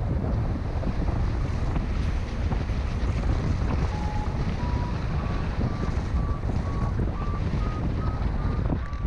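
Airflow buffeting the microphone in a steady, loud rumble during a paraglider flight. From about four seconds in, a paragliding variometer beeps in short tones, about two a second, stepping up in pitch and then holding: the vario's signal that the glider is climbing.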